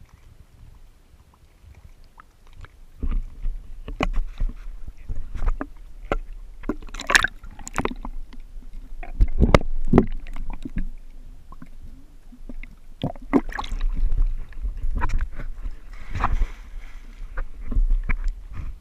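Pool water sloshing and gurgling around a camera in a waterproof housing at the surface, with irregular knocks and thumps. It is quieter at first and grows busier about three seconds in.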